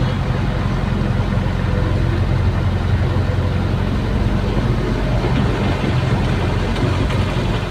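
Caterpillar hydraulic excavator's diesel engine running steadily, heard from inside the cab, as the boom and bucket dig.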